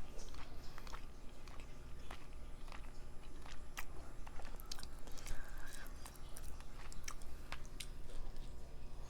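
Close-miked chewing and eating sounds: irregular wet mouth clicks and smacks as food is chewed.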